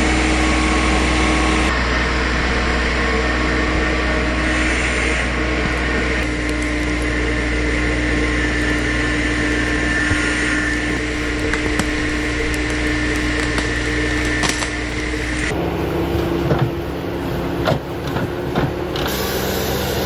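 An engine running steadily at a constant speed. About 15 seconds in it cuts abruptly to a different engine sound with a few sharp knocks.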